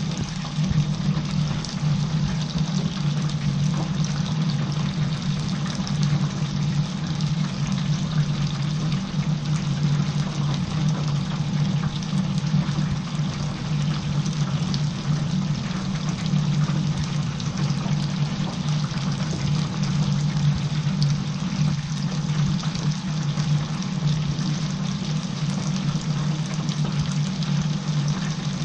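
Battered chicken pieces deep-frying in hot oil in a commercial stainless-steel fryer: a steady bubbling sizzle with fine crackling, over a steady low hum.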